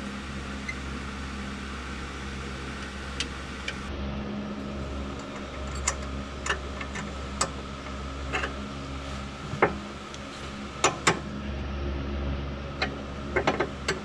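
Allen key and wrench clicking and clinking against the rear sway bar end link of a Jeep Cherokee KL while it is being unbolted. The sharp metallic ticks come irregularly, more often and louder in the second half, over a steady low background hum.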